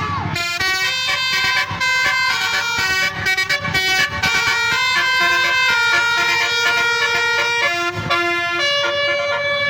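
Wulan Jaya bus's multi-tone basuri telolet horn playing a tune: several tones sound together as held notes, stepping from one pitch to the next.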